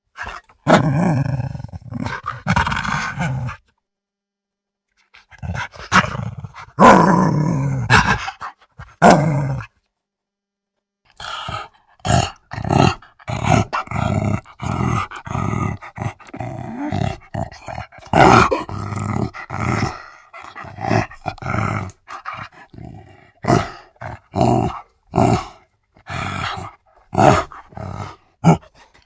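A dog growling: long, rumbling growls broken by two pauses of about two seconds. After the second pause comes a quick run of short growls, one or two a second.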